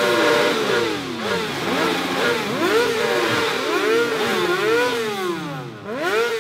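Several motorcycle engines revving again and again, their pitch rising and falling in overlapping sweeps.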